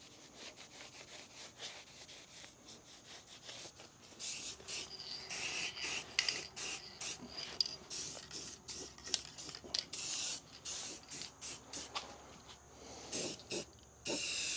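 Quick rubbing strokes against the steel of a truck frame, faint at first and coming thick and fast from about four seconds in.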